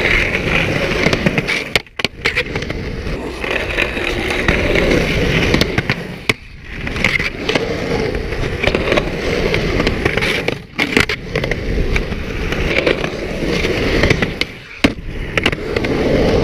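Skateboard wheels rolling on concrete, a steady roll broken about four times by short gaps with sharp clacks of the board.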